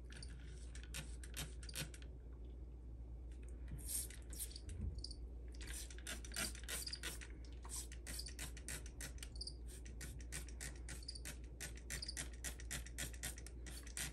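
Hand-held plastic trigger spray bottle squirting water onto potting soil, pumped in fast runs of short spritzes, several a second. There is a lull of a few seconds near the start, then steady pumping again. The water is being sprayed at the base of freshly potted butterworts to settle their roots in.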